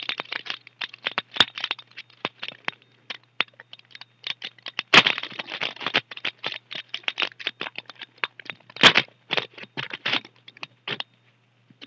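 Wrapper of an Upper Deck Valiant trading card pack being torn open and crinkled: dense irregular crackling with a few sharper, louder cracks, stopping about a second before the end.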